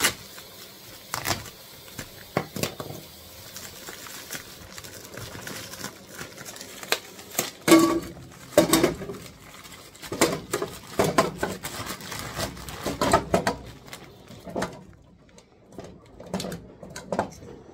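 Kitchen handling noise: scattered knocks and clatter of a cooking pot with rustling of corn on the cob in its plastic wrapping. The clatter is thickest in the middle stretch and thins out over the last few seconds.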